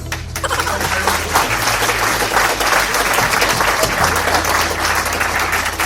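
Plastic packaging and plastic toy pieces being handled, a dense, steady crinkling crackle.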